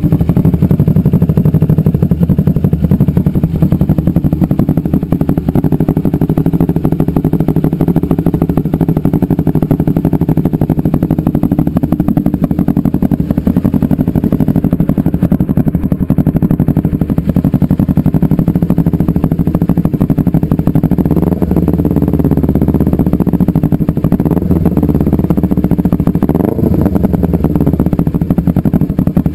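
Warm Kawasaki Ninja 250R parallel-twin engine idling steadily through its exhaust, with a few brief rises in engine speed in the second half.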